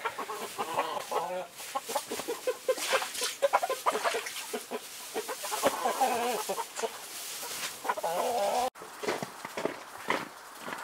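A flock of chickens clucking, with many short calls overlapping one another.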